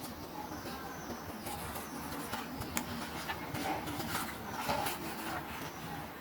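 Small plastic toys and packaging being handled: a run of light clicks, taps and crinkles over a steady hiss, busiest in the middle of the stretch.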